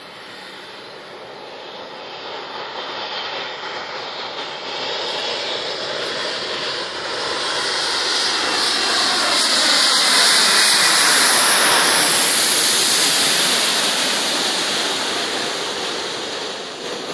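Boeing 787 airliner on final approach passing low overhead, its jet engines growing steadily louder to a peak about ten to thirteen seconds in, with a tone sweeping downward as it passes, then fading as it heads away toward the runway.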